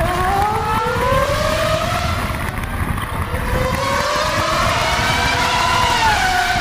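Radio-controlled car's motor whining and rising in pitch as it speeds up, twice, with the pitch dropping near the end, over a steady rough low rumble.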